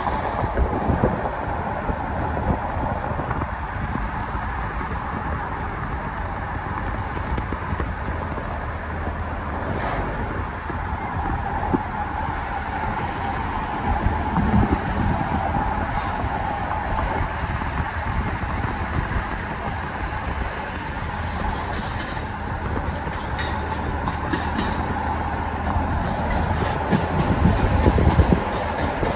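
Steady road rumble of a moving car heard from inside it, with a train's rumble mixed in; the sound swells near the end as the car comes alongside the passing train.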